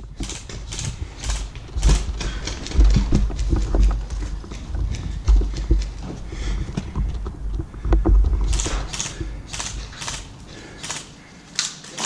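Handling noise from an airsoft player moving with a gun-mounted GoPro: repeated clicks and knocks, some about twice a second like hurried steps, over a heavy low rumble of rubbing and buffeting on the camera microphone.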